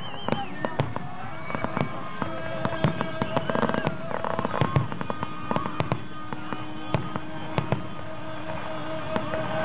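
Fireworks finale: a rapid run of overlapping aerial shell bursts and crackling bangs, densest from about three to five seconds in.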